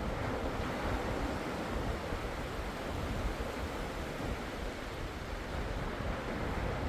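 Ocean surf washing steadily, an even noise of waves with no pauses or distinct single breakers.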